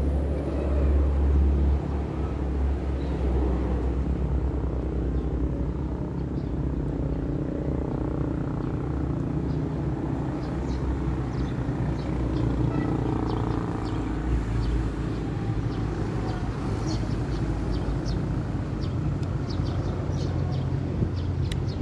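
Wind buffeting the microphone: a steady low rumble throughout. Short high chirps come through in the second half.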